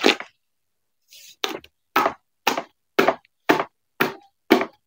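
Thick pukis batter beaten by hand with a paddle in a large bucket: a wet stroke slapping through the batter about twice a second, after a pause of about a second near the start.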